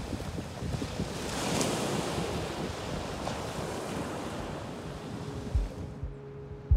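Surf washing onto a sandy beach, one wave swelling and breaking about a second and a half in, with wind buffeting the microphone in low thumps near the end.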